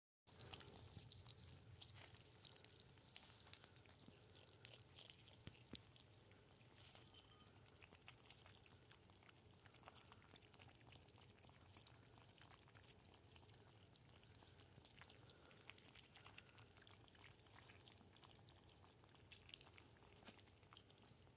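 Faint, irregular small clicks and wet ticks of several ferrets lapping water from a bowl, over a low steady hum.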